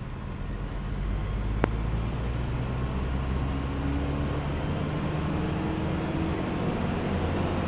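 Steady engine drone and tyre road noise heard from inside a moving car, with the engine note rising slightly through the middle. A single sharp click sounds nearly two seconds in.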